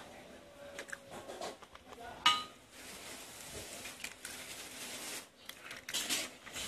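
Eggs being cracked against the rim of a stainless steel pot: light clicks, then one sharp knock with a short metallic ring about two seconds in.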